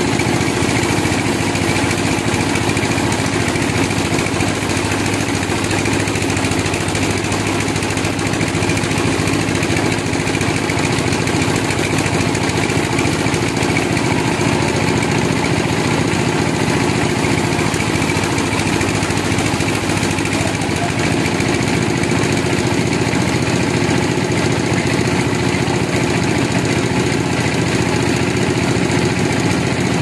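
Large band sawmill running, a loud, steady machine drone that holds unchanged throughout.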